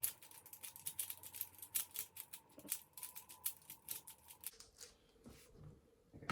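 Non-magnetic MoFang JiaoShi MF3RS2 speedcube being turned fast by hand: a quick run of light plastic clicks for about four seconds, thinning out near the end.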